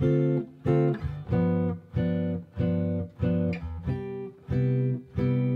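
Semi-hollow electric guitar comping a basic ii–V–I in C (Dm7, G7, Cmaj7) in plain four-to-the-bar: one short strummed chord on each beat, about two a second, with a clear break after each chord. The chord changes about a second in and again near four seconds.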